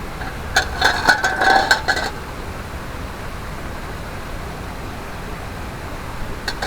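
A quick run of sharp clinks of cookware knocking together, ringing briefly, starting about half a second in and lasting about a second and a half, with a faint clink near the end. The steady rush of a mountain stream runs underneath.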